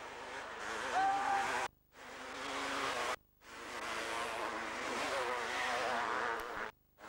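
500cc two-stroke motocross bikes racing past, engines revving and pitch rising as they come closer. The sound cuts out sharply three times between spliced clips and swells again after each cut.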